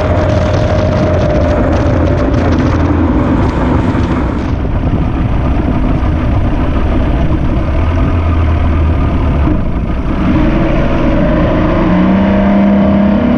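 2004 Mercury 150 EFI two-stroke V6 outboard running as the bass boat moves over the water, mixed with wind and hull noise. The sound changes about four and a half seconds in, and a steady engine note comes up near the end.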